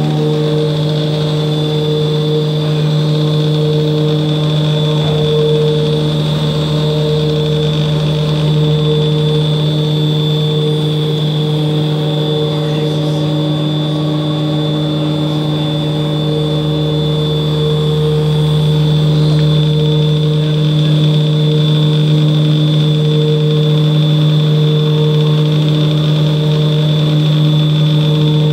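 Continuous double-shaft paddle mixer running: a loud, steady mechanical hum with a constant high whine above it.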